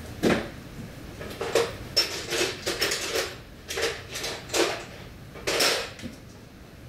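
Irregular metallic clinks and clunks, about a dozen sharp knocks spread over several seconds, of metal hardware and tools being handled, the loudest just after the start and around five and a half seconds in.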